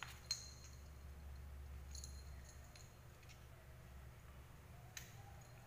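Near-quiet room with a low hum and a few faint sharp taps of a cat's paws batting a mouse on a hard wooden floor, one just after the start and one about five seconds in.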